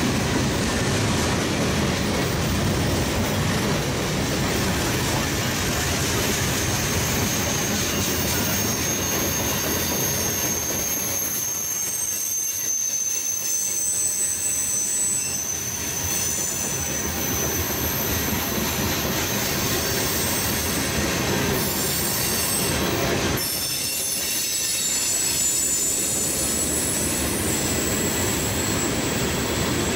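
Freight cars of a passing Norfolk Southern train, boxcars, covered hoppers and tank cars, rolling steadily by: a continuous rumble of steel wheels on rail with a thin, high wheel squeal above it. The rumble eases briefly twice, about halfway through and again later.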